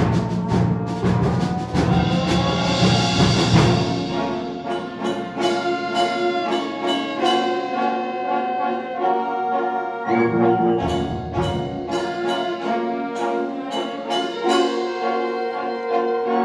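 A concert band of brass, woodwinds and percussion plays live, heard from the audience seats in an auditorium. It opens with heavy low notes and many strikes for about four seconds, then moves into held brass chords with moving lines above.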